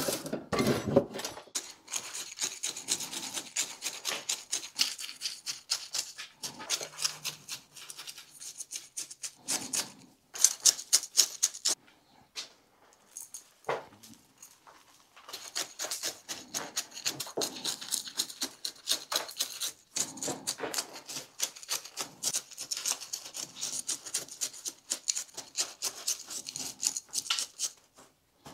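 Gritty bonsai soil mix being jabbed and worked with a chopstick to settle it among the roots: a fast, dense run of scratchy crunching ticks, with a pause of a few seconds a little under halfway.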